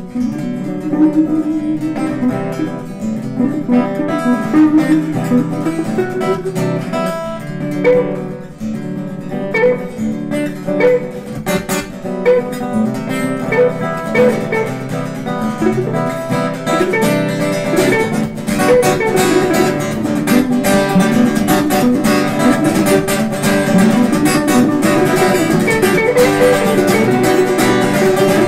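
Background music led by acoustic guitar picking a melody, growing fuller and a little louder about two-thirds of the way through.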